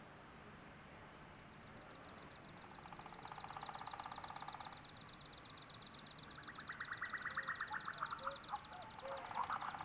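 Quiet electronic sound texture played on a Nord Electro 3 stage keyboard: a fast, even high trill that starts about a second in, with lower trilling tones swelling in twice beneath it.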